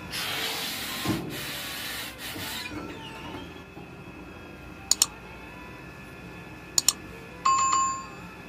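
Steam hissing out through the padded form of a steam ironing press, fed by an electric steam boiler, for about two and a half seconds. Later come two pairs of sharp clicks and a short ringing chime.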